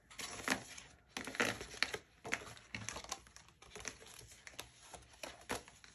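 Tarot cards being picked up off a table and gathered into a stack: an irregular run of quick papery slides, taps and rustles.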